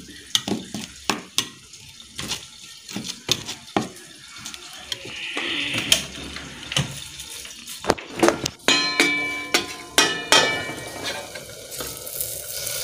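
Steel spoon stirring and scraping a thick masala paste in a stainless-steel bowl, with repeated clinks of metal on metal. About nine seconds in, steel cookware clanks and rings for a couple of seconds.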